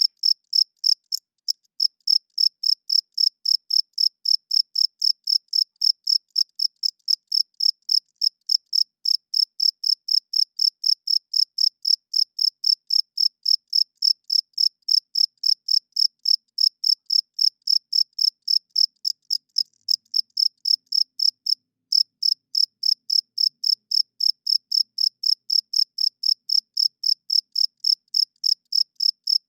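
Male crickets chirping steadily in a fast, even rhythm of about three high, clear chirps a second, broken briefly twice.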